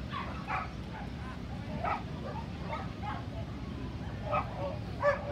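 Dogs barking and yipping in short, scattered calls over a murmur of crowd chatter, with one louder call near the end.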